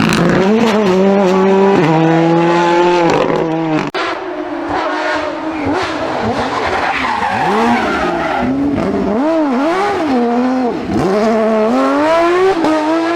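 Rally car engines at high revs, pitch climbing and dropping again and again as the drivers shift gears and lift off, with tyres skidding on the stage. The sound changes abruptly about four seconds in, as one car gives way to another.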